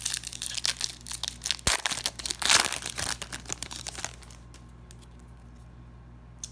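Foil wrapper of a Garbage Pail Kids sticker-card pack being torn open and crumpled by hand: a dense crinkling crackle, loudest a little past the middle, that stops about four seconds in.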